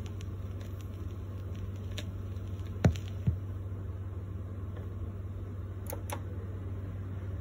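Turntable playing into the end of a 45 rpm single: a steady low hum with faint ticks from the stylus, then two sharp thumps about three seconds in as the tonearm is lifted off the record, and two light clicks near the end as the arm is set back on its rest.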